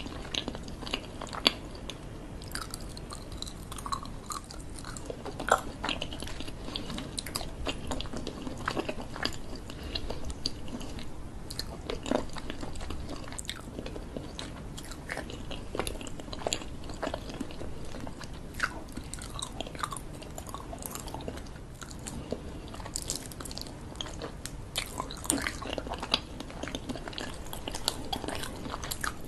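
Close-miked chewing and biting of fruit-shaped sweets, with frequent small mouth clicks and smacks scattered throughout.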